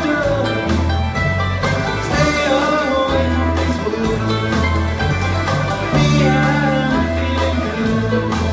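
Live jamgrass band playing loudly through a theatre PA, recorded from the crowd: a full band with a steady beat and a moving bass line.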